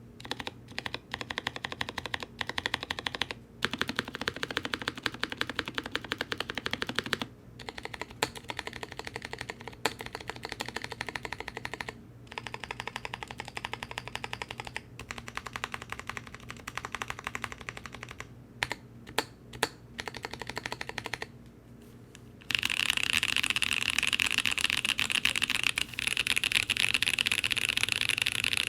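Typing on a Mode Eighty mechanical keyboard with NK Blueberry tactile switches, an aluminium plate and GMK keycaps: fast, irregular key clacks with a few short pauses. About two-thirds of the way through, the sound turns into a denser, louder clatter.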